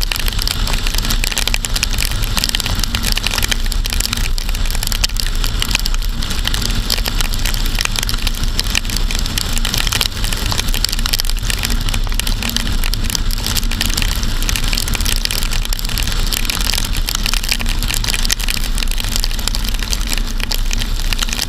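Steady rush of wind and tyre spray from a car driving on a wet road, picked up from outside on the car's trunk, with a low rumble underneath. Raindrops and spray crackle rapidly against the camera.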